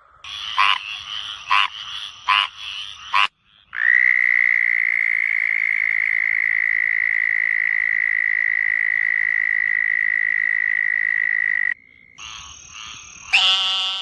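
Frogs calling: a few short, repeated calls, then one long, even trill held for about eight seconds, then another quick run of calls near the end.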